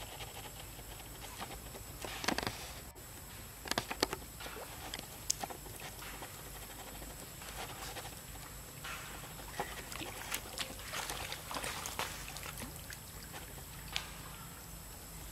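Water splashing and lapping in small irregular bursts as a baby monkey swims.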